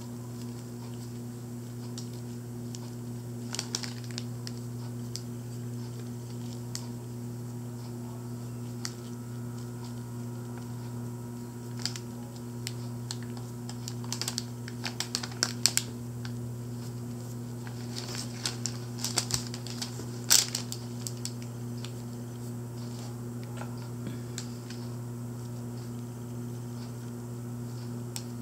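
Scattered light clicks and taps from hands handling a painted figurine and paintbrush, coming in clusters through the middle, over a steady low electrical hum.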